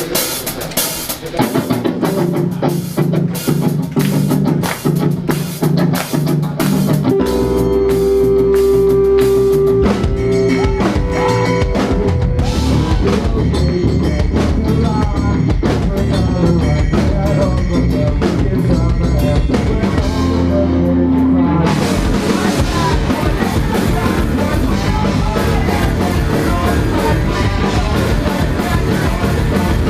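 Rock band playing live: a steady drum beat opens, then bass and guitar come in with long held notes about seven seconds in, and the full band gets denser and louder about two thirds of the way through.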